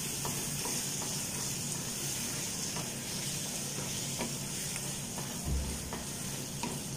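Raw beef cubes sizzling in spiced onion-tomato masala in a frying pan as a wooden spatula stirs them, with a steady frying hiss and soft scrapes and taps of the spatula against the pan. A dull low bump a little over five seconds in.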